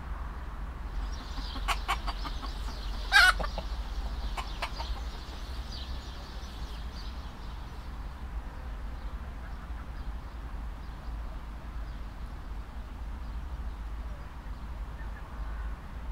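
Chickens clucking and squawking, with one loud squawk about three seconds in, the calls fading out by the middle; a steady low hum runs underneath.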